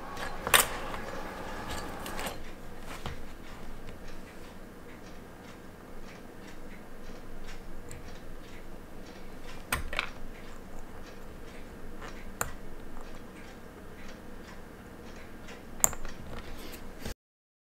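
Small clicks and taps of a quartz watch movement and its holder being handled by hand, with four or so sharper clicks among light ticking. The sound cuts out abruptly near the end.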